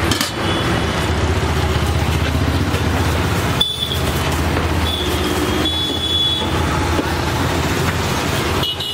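Steady street traffic noise over a continuous low rumble, with a few short high-pitched tones breaking in now and then.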